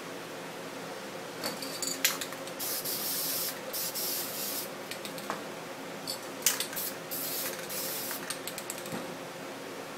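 Krylon aerosol spray paint cans hissing in short bursts as paint is sprayed onto the board, in two spells separated by a pause of about a second and a half.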